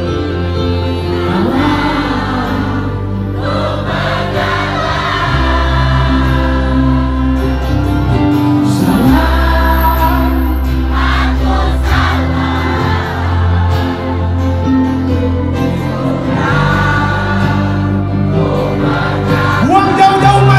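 Live pop band playing over loudspeakers with a large crowd singing along in unison.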